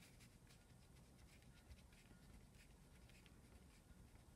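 Faint scratching of a coloured pencil drawing on crumpled paper, in short irregular strokes.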